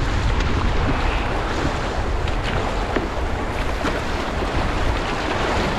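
River water rushing through a rapid around a canoe, a steady dense wash, with heavy wind rumble on the microphone.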